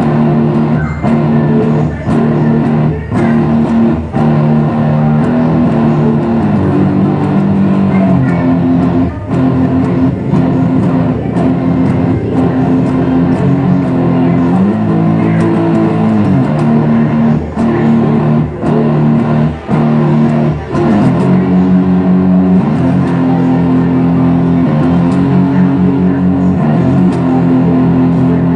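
Background music with guitar and bass, playing steadily with chord changes every second or two and a regular beat.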